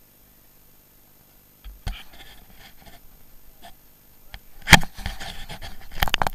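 Knocks and rubbing on the action camera's microphone as it is handled, with two loud bumps, one about two-thirds of the way in and one near the end.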